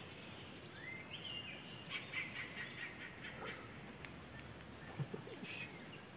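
Insects and birds: a steady high insect drone with a short, high chirp repeating evenly a little more than once a second, and a few scattered bird chirps between about one and four seconds in.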